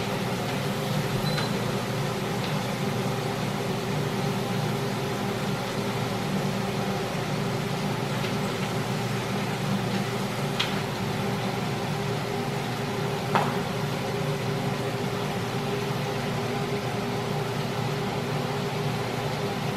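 Steady hum of a kitchen range hood fan over pork belly frying in oil in a wok, with two light clicks about ten and thirteen seconds in.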